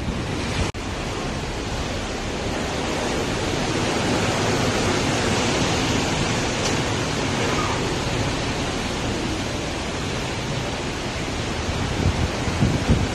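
Steady rush of choppy sea mixed with wind buffeting the microphone, with gustier low rumbles near the end. The sound cuts out for an instant less than a second in.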